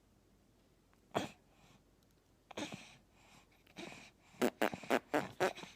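Six-month-old baby laughing: a couple of short single sounds at first, then a run of quick laughs, about five a second, in the last two seconds.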